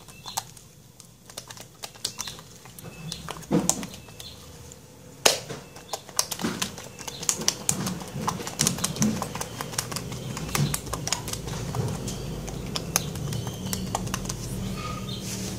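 Fingers poking and pressing glossy neon-pink slime, giving a run of small wet clicks and pops that come thicker in the second half, with one sharper click about five seconds in.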